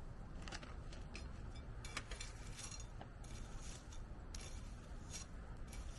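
Irregular rustling and scraping from hands working in a garden bed while planting, with a few light clicks, over a steady low rumble.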